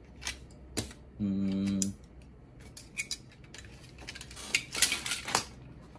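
Cardboard box and packing being handled on a table: scattered clicks and taps, a brief hummed "mm" a little after a second in, then a louder bout of rustling and knocking near the end.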